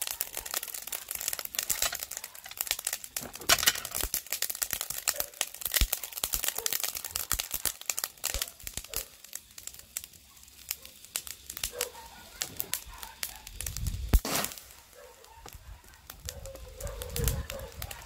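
Salted gizzard shad grilling on a wire grill over a charcoal fire, crackling and popping densely as fat and salt spit onto the hot coals, with one louder burst about fourteen seconds in.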